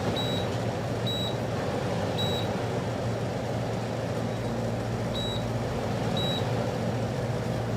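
RINKMO 296 PPD commercial dehumidifier running with its fan on high: a steady rush of air over a low hum. Its touch-pad control panel gives five short high beeps, three in the first couple of seconds and two more a few seconds later.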